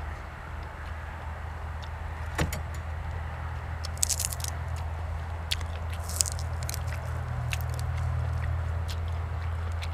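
A person eating: scattered small clicks and two short crisp crunching bites, about four and six seconds in, over a steady low hum.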